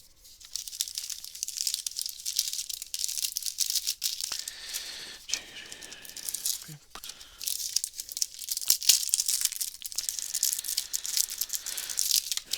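Trading-card booster pack wrapper crinkling and tearing as it is opened: a continuous crackle with many sharp clicks.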